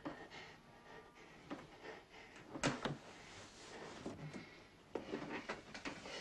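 Faint knocks and shuffling, with a sharper cluster of knocks about two and a half seconds in and a few smaller ones near the end.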